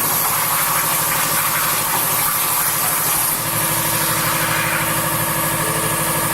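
CNC plasma cutting machine running: a steady hiss over a fast, even low buzz, with a faint steady tone joining about three seconds in.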